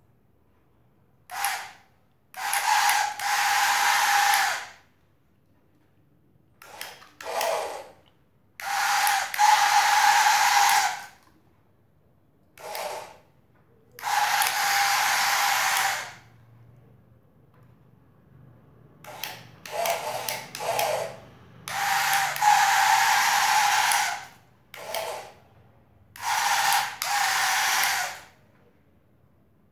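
Small battery-powered electric motor in a toy tipper truck whirring in about a dozen short runs of one to two seconds, each with a steady whine, stopping and starting again.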